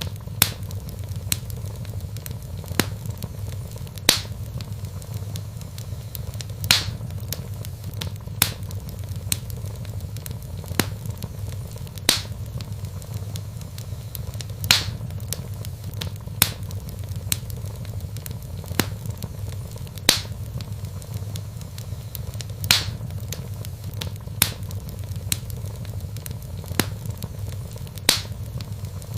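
Log fire burning in a fireplace: sharp crackles and pops, roughly one a second with every few louder than the rest, over a steady low rumble of the flames.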